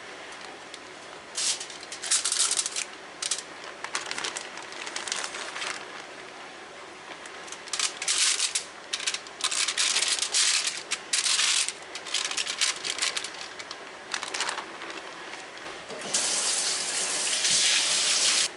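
Aluminum foil crinkling and rustling in irregular bursts as fish fillets are handled and laid out on a foil-lined tray. About two seconds before the end there is a steady rushing noise lasting a couple of seconds.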